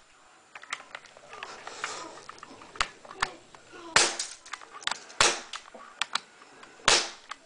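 A series of sharp clicks and knocks close to the microphone, with three much louder cracks about four, five and seven seconds in.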